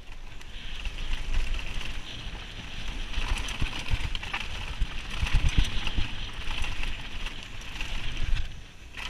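Mountain bike ridden fast down a rough dirt trail: a steady rushing hiss over a low rumble, with frequent knocks and rattles as it runs over bumps, thickest in the middle.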